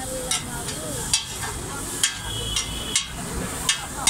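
Flat metal spatulas striking and scraping a large metal wok as pasta and vegetables are stir-fried, with sharp clangs about once a second. A steady sizzle of frying runs underneath.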